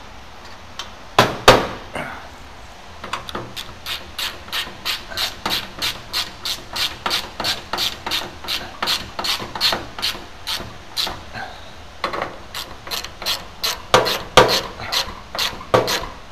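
Ratchet wrench clicking at an even pace, about three clicks a second, as a nut on a chrome trim fastener under the hood is run down, with a few louder metal knocks about a second in and near the end.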